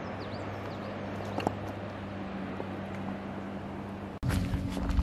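Steady outdoor background with a low hum and a few faint high chirps, then, about four seconds in, louder footsteps on a gravel dirt trail.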